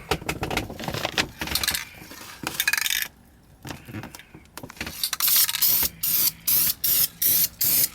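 Aerosol spray paint can shaken, its mixing ball rattling, then from about five seconds in short hissing bursts of spray, about three a second, as paint is fogged onto the dashboard.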